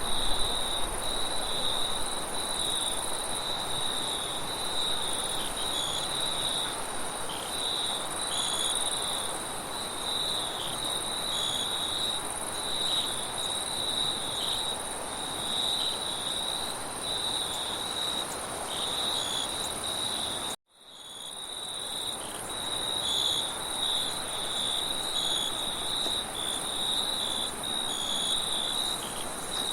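Crickets chirping in a steady, dense chorus, a pulsing trill over a higher continuous buzz, with a soft wind hiss underneath. About two-thirds of the way through, everything cuts out for an instant and then fades back in.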